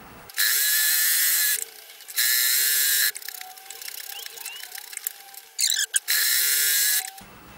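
Domestic electric sewing machine stitching through fabric in three runs of about a second each, stopping in between, with a short stutter just before the last run.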